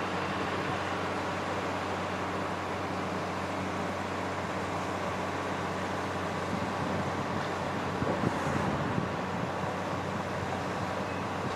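Steady outdoor road-traffic and railway rumble with a low, even hum underneath, and a brief louder passing sound a little after eight seconds in.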